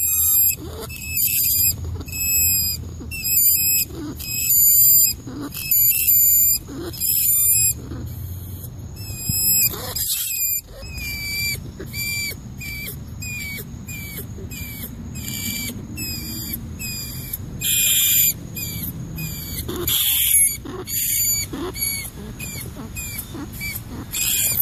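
Rat squeaking: a long series of short, high-pitched squeaks, one after another, growing shorter and more frequent after about eight seconds.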